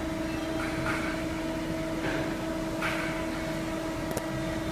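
Shoe toe-lasting machine running: a steady hum with several short bursts of hiss and a sharp click about four seconds in.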